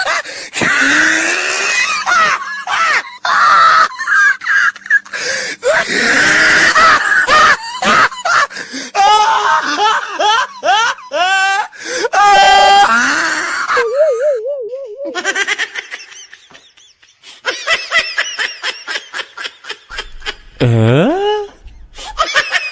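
Loud laughter and shrieking. About two-thirds through comes a wobbling tone, and near the end a tone slides down and back up.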